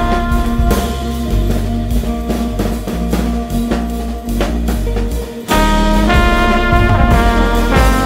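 Jazz recording: drum kit and a low bass line, then a loud trombone entry with sustained notes about five and a half seconds in, after a brief drop-out.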